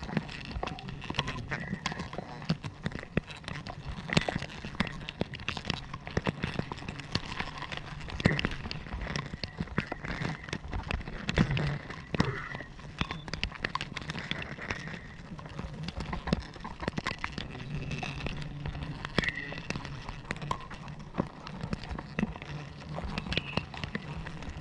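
A disturbed swarm of giant honey bees (Apis dorsata) buzzing in a steady low hum as their comb is cut away, with many sharp clicks and knocks over it.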